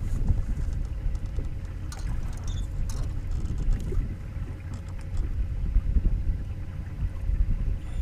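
Low, uneven rumble of wind and light chop on open water around a fishing boat, with a few faint clicks.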